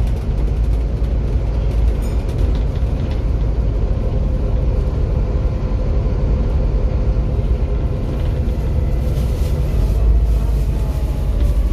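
Volvo B7 bus's diesel engine running with a steady low rumble. Near the end a whine rises in pitch: the turbocharger whistle.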